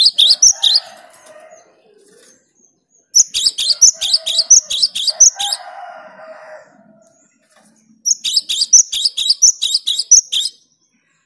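Cinereous tit (gelatik batu) singing: three bursts of rapid, sharp, high repeated notes, one at the start, one from about three to six seconds in, and one from about eight to ten and a half seconds in, with short silences between.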